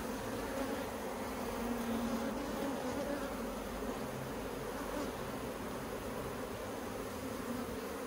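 Honey bees buzzing on a brood frame lifted from an open hive: a steady hum.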